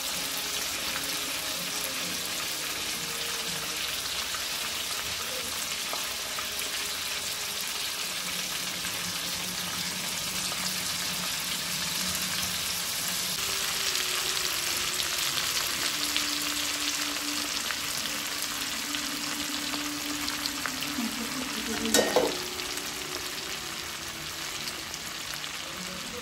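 Food sizzling as it fries in hot oil in a pan, with stirring; the sizzle grows a little louder about halfway through. A brief knock about four seconds before the end.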